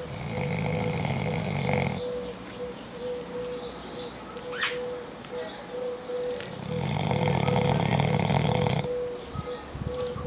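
A sleeping pet snoring: two long, rattling snores of about two seconds each, the first at the start and the second about seven seconds in.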